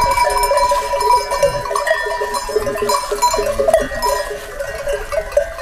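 Many livestock bells on a flock of sheep ringing together continuously, a jumble of overlapping tones.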